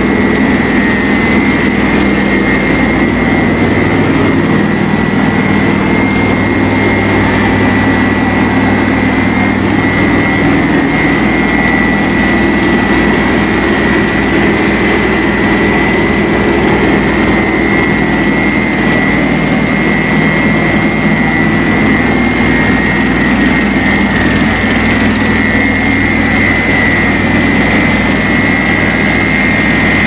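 Rice-husk-fired steam boiler plant machinery running steadily and loudly: a constant low hum with a high, steady whine over it.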